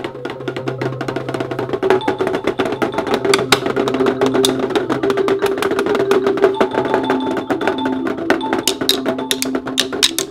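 A beat played on an electronic percussion pad struck with drumsticks: fast, busy percussive hits over held bass and synth notes.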